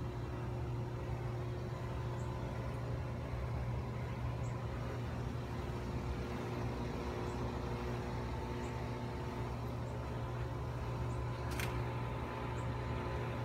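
A steady low mechanical hum with a few thin steady tones above it, unchanging throughout, and a single sharp click near the end.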